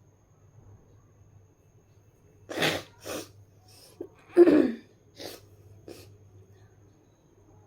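A person's breathy throat sounds: about six short, sharp breaths and huffs. The loudest, about halfway through, carries a brief falling voiced tone.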